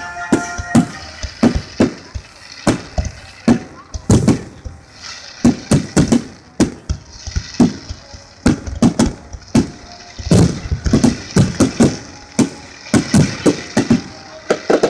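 Aerial fireworks shells bursting in a rapid, irregular string of loud bangs, often several a second, with a steady hiss between the bangs.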